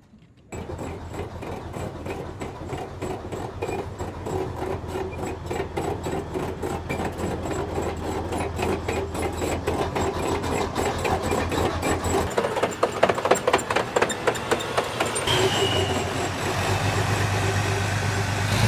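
M1A1 Abrams tank's gas-turbine engine running while its steel tracks clatter in a rapid, even rhythm, as on the metal ramps and bays of a floating bridge. It cuts in suddenly about half a second in.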